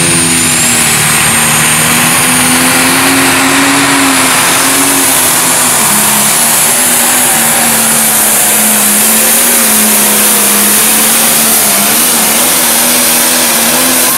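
John Deere pro stock pulling tractor's turbocharged diesel engine running at full throttle while it drags a weight-transfer sled, loud and steady. A high turbo whine rises over the first couple of seconds and then holds. The engine's pitch sags a little about five seconds in.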